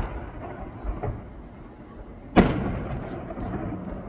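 Fireworks going off: a couple of soft pops about a second in, then a loud bang about halfway through with a rumbling echo that fades away.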